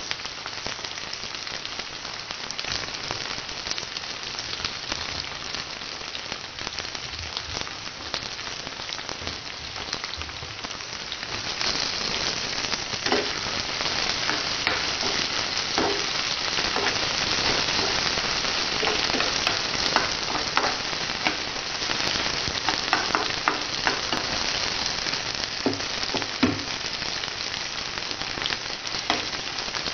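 Sliced potatoes frying in hot oil in a non-stick pan, a steady sizzle. It grows louder about twelve seconds in, and a few sharp spits and clicks rise above it in the second half.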